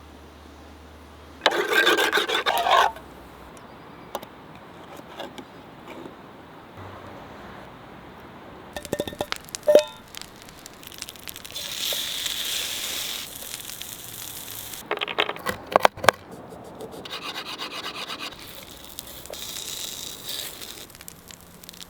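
Camp-cooking handling sounds: a bread knife sawing through a stale baguette in a short loud rasping stretch, then scattered clinks and scrapes of utensils against a metal camping pot, with a few seconds of hiss partway through.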